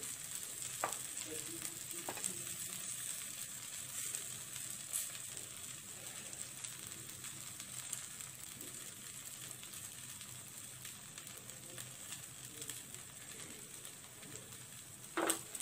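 Egg-coated paratha frying gently in an oiled pan on a gas stove: a soft, steady sizzle, with a few faint taps as chicken pieces are laid on top. A brief louder sound near the end.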